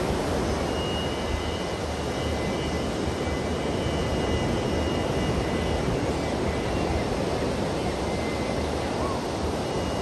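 Ocean surf breaking on a sandy beach, a steady, even roar of waves.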